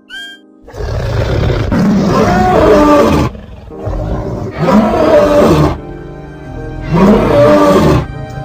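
Lion roaring three times over background music. Each roar is a long, rough call: the first starts about a second in and is the longest, and the last is the shortest.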